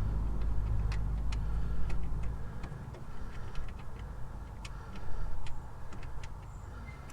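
Scattered, irregular light clicks and clinks of tools and metal parts being handled while refitting parts of the power steering pump. Under them runs a low rumble that fades about two and a half seconds in.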